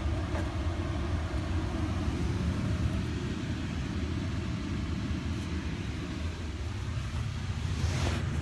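Steady low rumble inside a car's cabin with the engine running, and a brief rustle near the end.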